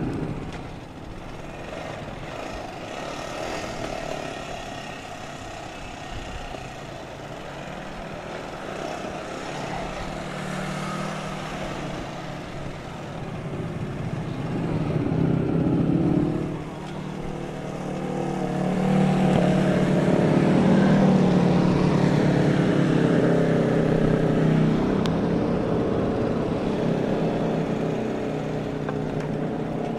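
ATV engine running as the quad rides along a dirt trail, revving up about halfway through, dropping back briefly, then pulling hard for several seconds before easing off.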